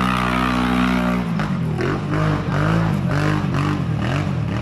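Quad bike engine held at high revs on a steep uphill climb, then about a second in the revs start rising and falling over and over in quick swings as the throttle is worked.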